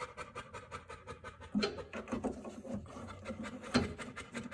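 Scratching and clicking of a plastic blinker bulb socket being worked back into its housing in a car's front light assembly, with a couple of louder knocks about one and a half seconds in and near the end.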